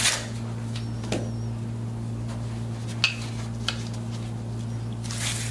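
Steady low electrical hum with a few brief knocks and rustles, about a second apart at first, then a longer rustle near the end, as a person shifts position on a chiropractic treatment table.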